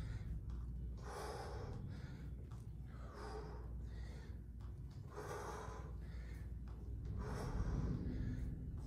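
A man breathing hard and forcefully in a steady rhythm while doing bodyweight squats, a strong breath about every two seconds with softer ones between.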